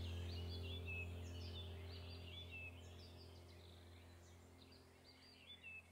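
Many small birds chirping and twittering over a low steady hum, all of it faint and fading gradually quieter.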